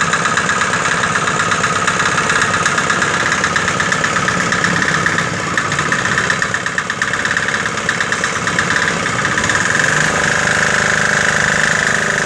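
Small General engine running steadily, belt-driving a Sanchin SC30 three-piston power sprayer pump that is drawing water from a bucket and spraying it out. The sound dips briefly about halfway through.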